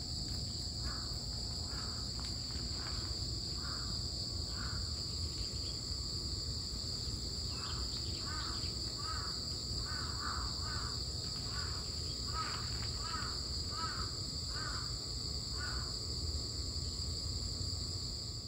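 Outdoor insects chirring in a steady, high-pitched drone, with an animal giving a series of short repeated calls. The calls come about once a second at first, then faster and closer together from about eight seconds in.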